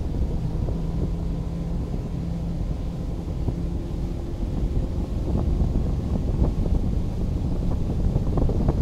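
Speedboat engine running at low speed, a steady drone, with wind buffeting the microphone, getting a little louder and gustier toward the end.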